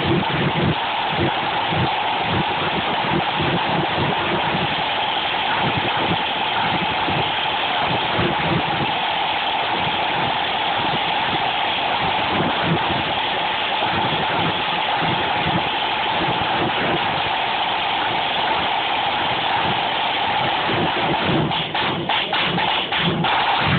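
Flute band drum section playing a drum solo: snare drums in dense, fast rolls with lower drum beats underneath, breaking into a run of separate sharp strokes near the end.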